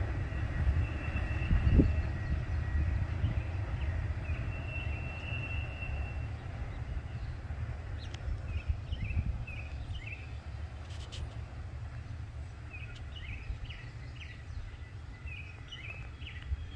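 Low rumble of a Norfolk Southern freight train fading away as it recedes, with a thin high steady tone that dies out in the first few seconds. Small birds chirp in short repeated calls from about halfway in.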